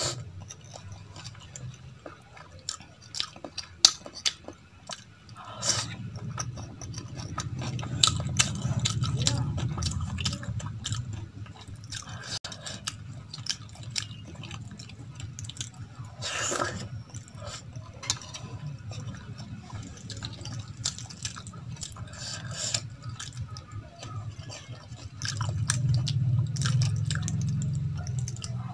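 Close-up eating sounds: fingers squishing rice mixed with kadhi in a steel plate, and wet chewing with many small mouth clicks and smacks.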